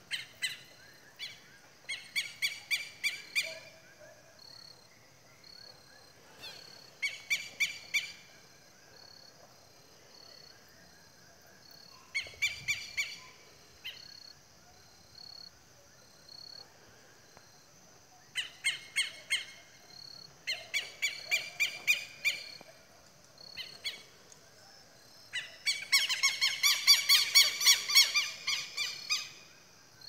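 Southern lapwings (quero-quero) calling: bursts of rapid, repeated shrill calls that come and go several times, the longest and loudest near the end. A steady faint high-pitched hum runs underneath.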